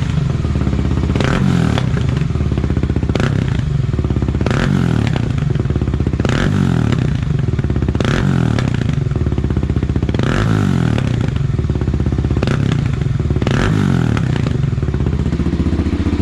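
Kawasaki KLX300R single-cylinder four-stroke engine through a Pro Circuit T6 full exhaust, running with repeated throttle blips, the pitch swinging up and down about every one to two seconds. Each blip brings sharp pops and cracks from the pipe, the exhaust spitting fire, which the owner thinks may be because it has no spark arrestor.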